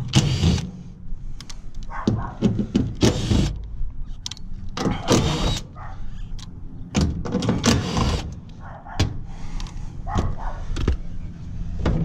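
Cordless drill/driver run in repeated short bursts, backing screws out of the sheet-metal access panels of a rooftop package AC unit. Sharp clicks and knocks of the bit and panel come between the bursts.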